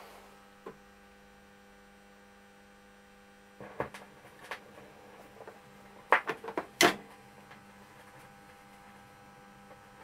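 Steady electrical mains hum, with a few faint clicks. Near the middle, a desk telephone's plastic handset is set down on its cradle with a short clatter of sharp knocks, the last one the loudest.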